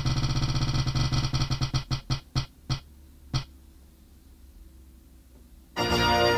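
Spin-the-wheel app's ticking sound effect from a tablet speaker as the virtual wheel spins: rapid clicks that slow to a few widely spaced ticks and stop about three seconds in as the wheel comes to rest. Near the end a chiming musical tone starts.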